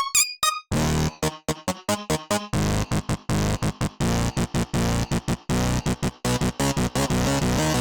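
Synthesizer stabs from the UVI Synth Anthology 5 software instrument, playing chopped, rhythmic chords over a deep bass. A few short, high plucked notes come before them at the very start.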